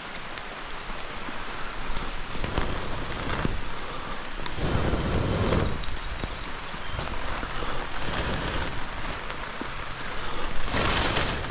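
Steady rain falling, a continuous hiss dotted with small ticks, with a few louder rushing swells, the strongest near the end.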